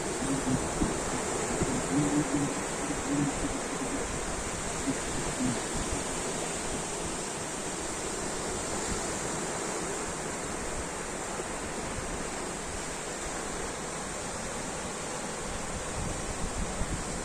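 Ocean surf: a steady hiss of waves washing in, without sharp separate crashes. A faint low tone comes and goes during the first few seconds.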